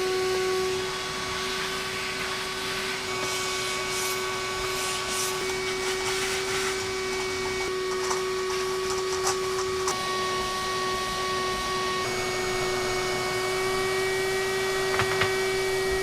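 Vacuum cleaner running with a steady hum, with a few clicks and knocks along the way.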